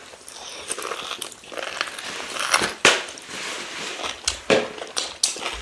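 Close-up mouth sounds of eating rice and stew with meat: wet chewing with scattered crackles and sharp clicks.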